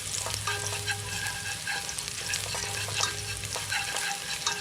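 Food sizzling in a frying pan: a steady crackle of many small pops over a low hum.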